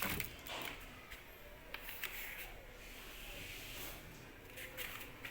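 Faint handling noise: soft rustling with a few scattered clicks, the loudest right at the start and again near the end.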